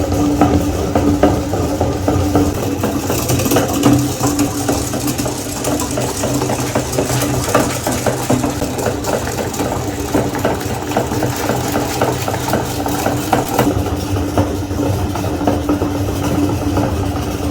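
Electric meat grinder running with a steady motor hum, with dense irregular clicking and crunching as Oreo cookies are ground through it.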